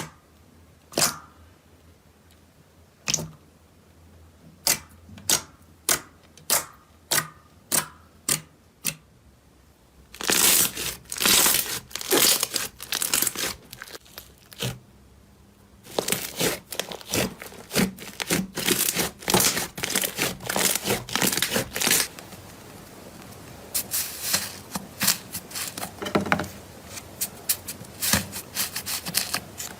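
Slime being pressed and played with: a run of separate sharp pops, coming faster until about two a second, then dense stretches of crackling and tearing sounds from about ten seconds in, with short breaks between them.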